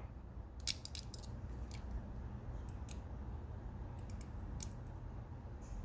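Scattered faint clicks of a Victorinox Swiss Tool Spirit multitool and its detachable wine-opener accessory being handled, metal parts tapping together, over a low steady hum.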